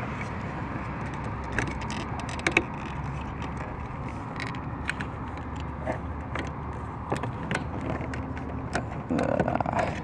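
Scattered light plastic clicks and taps as a replacement interior door handle for a 1998–2002 Toyota Corolla is worked onto its door-lock linkage rod, over a steady background hiss. A sharper click comes about two and a half seconds in, and a brief scraping rustle comes near the end.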